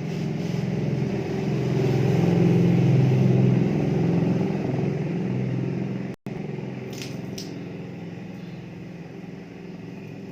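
Lukewarm salt water from a lota running through the nose and splashing down during jal neti nasal cleansing: a steady rushing noise that swells a couple of seconds in and slowly eases, breaking off for an instant about six seconds in.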